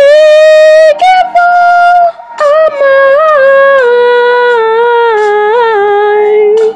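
A voice singing long, loud, high held notes that step down in pitch with small bends, breaking off briefly about one and two seconds in.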